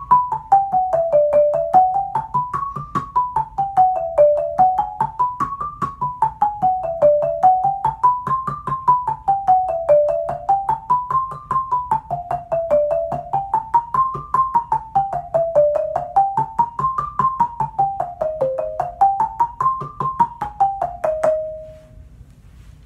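Marimba played with yarn mallets: a fast run of struck notes climbing and falling in a repeating wave about every three seconds, ending on a held note shortly before the end.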